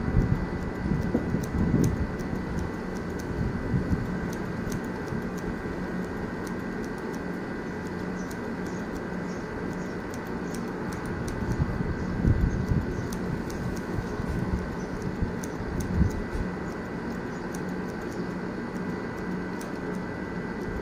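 Barber's scissors snipping hair in short, irregular faint clicks over a steady background hum. A few low rumbling surges stand out near the start and again about 12 and 16 seconds in.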